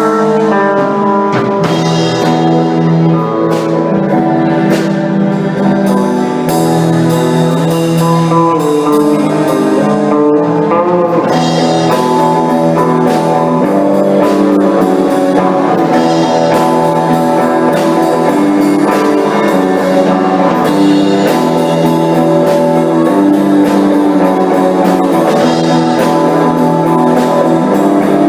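A band playing an instrumental rock passage on guitar, keyboard and drum kit, with steady chords and a regular drum beat and no singing.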